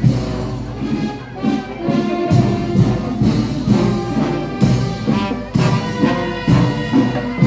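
Brass music with a steady beat: sustained horn chords over regular drum strokes.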